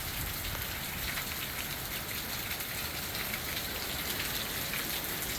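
Heavy hurricane rain, mixed with hail, pelting down steadily.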